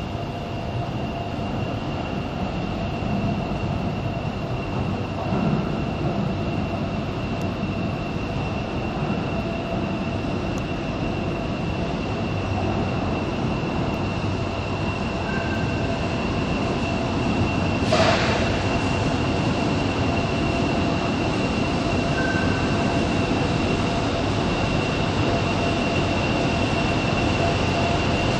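Tyne and Wear Metro Class 994 Metrocar running slowly into an underground station, its rumble growing steadily louder as it comes alongside, with a high steady whine throughout. There is a single sharp bang about eighteen seconds in.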